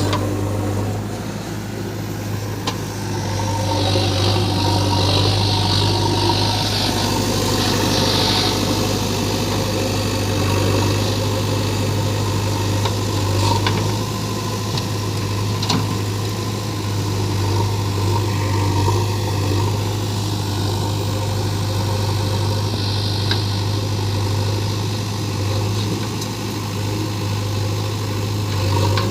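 Diesel engine of a JCB 3DX backhoe loader running steadily under work, a continuous low hum, with a spell of hissing a few seconds in.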